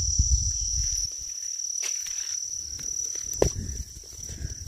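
Steady high-pitched chirring of evening insects, one unbroken tone. A low rumble sits under it for the first second, and two short clicks come about two seconds and three and a half seconds in.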